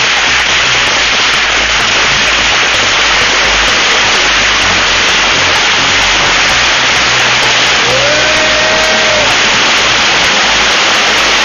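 A mass of tiny baby firework rockets firing off together, making a loud, dense, continuous hiss and crackle. About eight seconds in, a short whistle rises and then holds for about a second.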